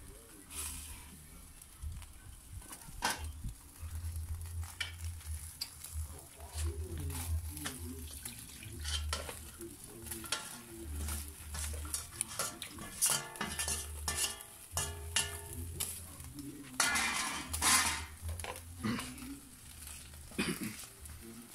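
Metal spoon scraping and clinking against a sauce-coated metal pan, with repeated clatters of cookware as sauce is scraped into a pot.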